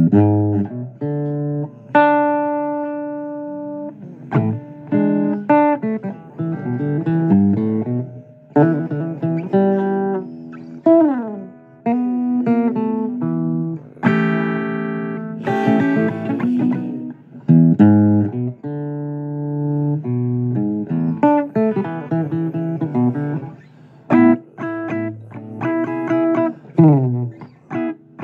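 Blues guitar instrumental: picked single notes and chords, some of them sliding up or down in pitch.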